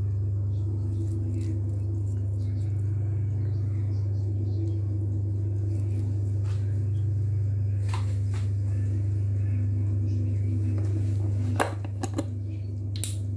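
A steady low hum, with a few sharp clicks near the end.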